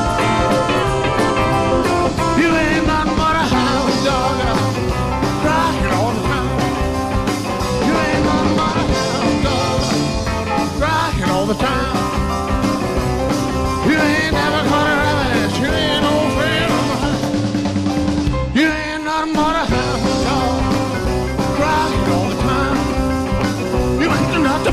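Live rock and roll band playing with drums, bass, electric guitar, keyboards and a trumpet and trombone horn section, the music briefly cutting out about 18 seconds in before the band comes back in.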